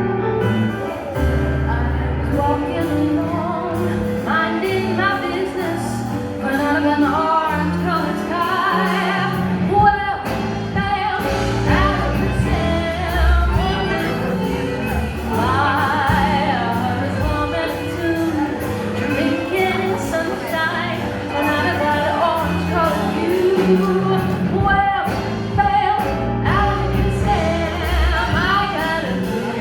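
Live jazz band with a singer performing a jazz standard, a bass line stepping beneath the vocal.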